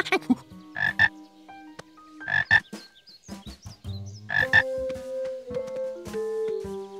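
Cartoon frog croaking three times, about a second and a half apart, each croak a quick double call.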